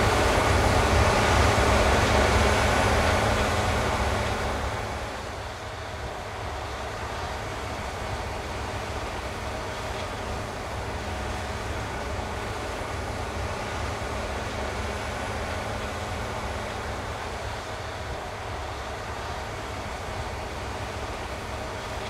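Claas Lexion 8700 combine harvester running while harvesting rice: a steady engine drone with the hum of the threshing machinery. Loud for the first four seconds or so, it then drops to a lower steady level.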